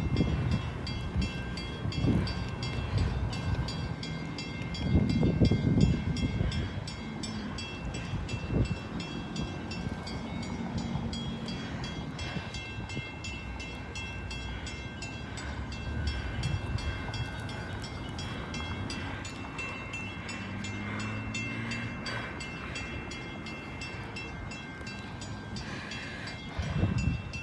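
Western-Cullen-Hayes drawbridge warning bell ringing continuously with rapid, even strokes, signalling that the bridge is about to open or is opening. A few low rumbles sit under it, the loudest about five seconds in.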